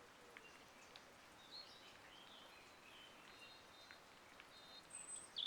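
Faint bird chirps over a quiet background hiss, with scattered short high calls and a louder burst of chirping near the end.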